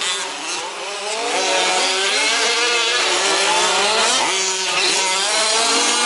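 Several 1/5-scale RC trucks' small two-stroke petrol engines running together, each revving up and easing off so the pitches rise and fall over one another.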